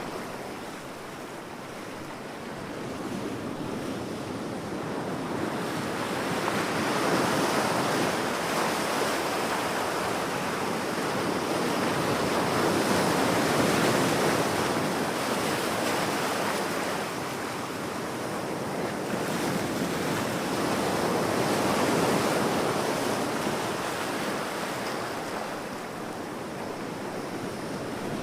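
Ocean waves breaking and washing on a shore, a steady rush of surf that swells and ebbs slowly every several seconds.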